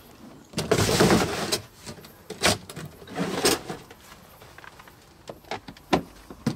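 Rustling and knocking from handling in a car's boot, with a few sharp clicks near the end as the lid of an old suitcase is shut.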